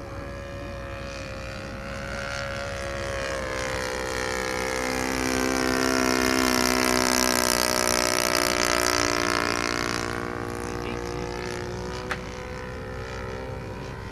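Engine and propeller of a radio-controlled model T-28 airplane in flight, a steady buzzing drone. It grows louder as the plane passes close around the middle, with its pitch bending slightly, then fades again.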